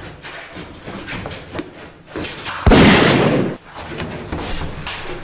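Quick footsteps on a hard corridor floor, then about two and a half seconds in a single loud bang that lasts nearly a second and cuts off suddenly.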